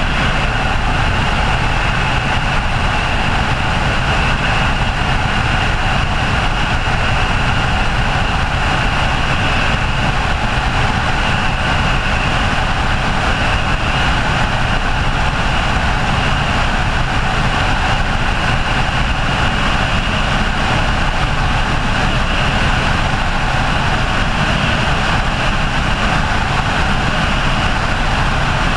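Helicopter in flight: a steady high turbine whine over a constant heavy rumble of rotor and engine noise.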